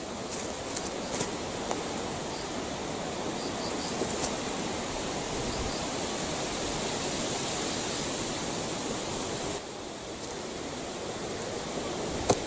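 Wind blowing steadily, a rushing noise, easing slightly after about ten seconds. A few faint light clicks come in the first seconds.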